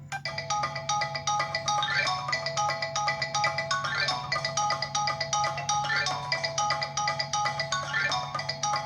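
A Samsung Galaxy Young 2 stock ringtone playing: a quick marimba-like melody of short, bright mallet notes, with a short upward sweep about every two seconds.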